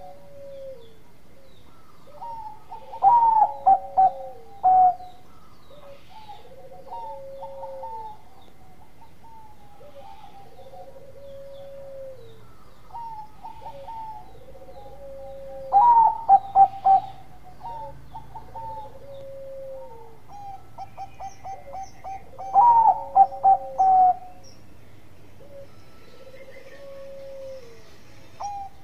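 Bangkok-strain zebra dove (perkutut) singing its staccato cooing song. Soft coos repeat every couple of seconds, and three loud bursts of rapid cooing notes come a few seconds in, about halfway, and again a few seconds later.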